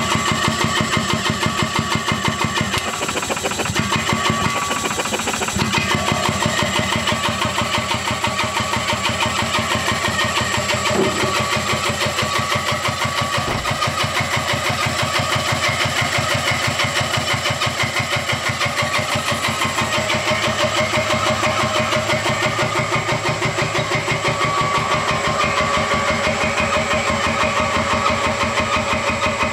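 Restored belt-driven air compressor running steadily at its set speed, its 4 HP three-phase motor held at 25 Hz (750 rpm) by an inverter, pumping with an even, rapid beat.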